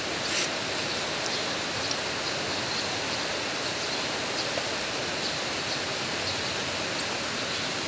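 Steady hiss of background noise, with a faint click or two of metal parts being handled.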